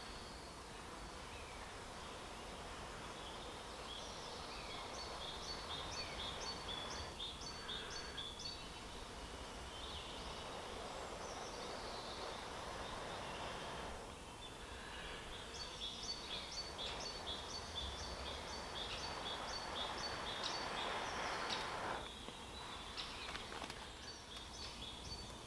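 Breath blown hard and steadily into a small stainless-steel box wood stove to fan the fire, a rushing noise in two long blows with short breaks about 14 and 22 seconds in. Over it a bird sings runs of quick, evenly spaced high notes.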